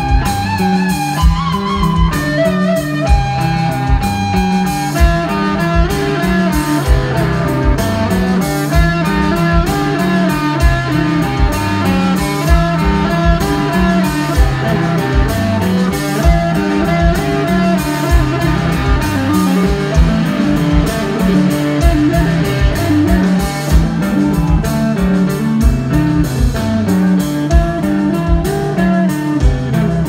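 Rock band playing live: electric guitar over a stepping bass line and a steady drum beat.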